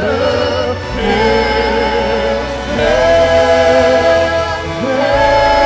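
Choir singing slow, sustained notes with vibrato over a steady bass accompaniment, in the style of a hymn.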